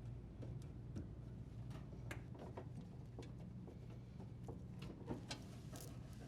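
Faint, irregular small clicks and taps of a tool working the dishwasher's threaded leveling legs, over a low steady hum.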